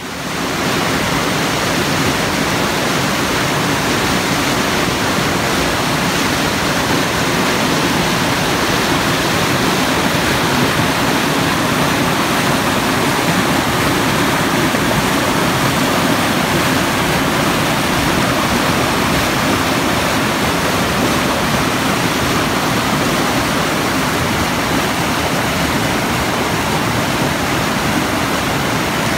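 Mountain river running fast in whitewater rapids over boulders: a loud, steady rush of water.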